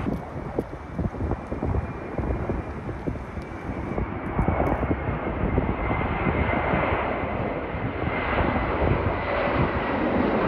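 Twin-engine jet airliner on final approach, gear down, passing low overhead: a steady engine rumble with a faint high whine, growing louder over the second half.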